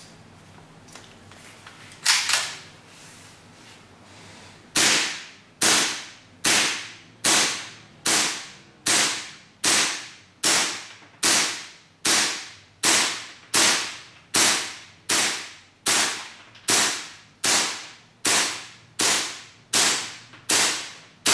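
KC-02 gas blowback airsoft carbine with its stock bolt, firing green gas semi-automatically: one shot about two seconds in, then a steady string of shots a little more than one a second, each a sharp crack with a short ringing tail.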